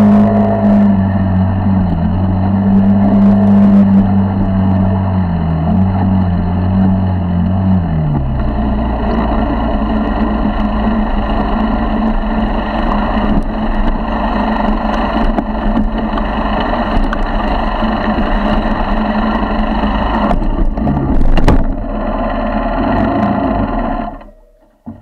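A 50cc four-stroke motorized-bicycle engine runs at a steady high speed, and its note drops away after about eight seconds. A steady rush of wind and rumble from the tyre over bumpy grass follows. Around 21 seconds there is a burst of sharp knocks and clatter as the bike crashes and flips, and the noise cuts off suddenly near the end.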